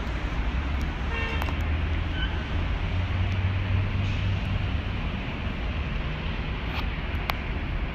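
Steady city traffic noise with a low rumble, heard from high above the street. A short horn toot sounds a little over a second in.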